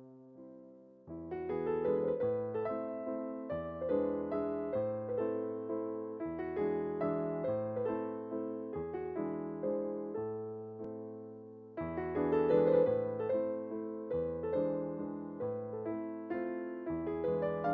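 Instrumental background music played on piano or electric piano: struck notes that fade away, in chords over a low bass line, growing louder about a second in.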